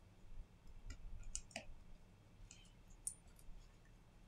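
A handful of faint, irregular small clicks and taps from tools and parts being handled on a Samsung Galaxy A52s 5G during a screen replacement.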